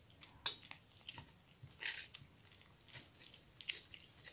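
Persian cat eating wet canned cat food: faint, irregular wet chewing and mouth smacks.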